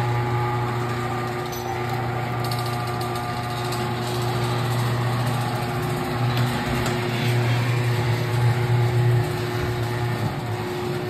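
Electric garage door opener running steadily with a strong low hum, driving the door along its track on its newly replaced springs; it starts and stops abruptly, one full travel of about eleven seconds.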